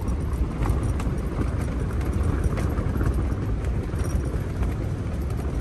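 Strong wind buffeting a Smittybilt Gen 2 roof-top tent: a steady, loud rumble of wind with the tent fabric rattling and snapping in many small irregular clicks.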